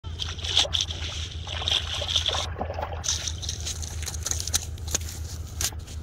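A hooked carp thrashing in shallow river water, splashing repeatedly as it is pulled in on a line.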